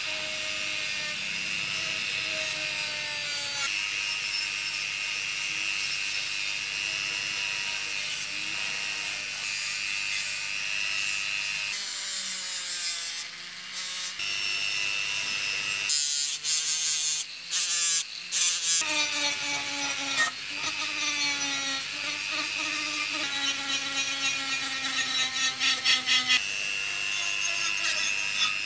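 Handheld rotary tool running with a steady high whine, its spinning polishing and sanding wheels rubbing rust off the steel crank arm and housing of an old pencil sharpener. About two-thirds of the way through, louder choppy grinding comes and goes as the wheel bites the metal.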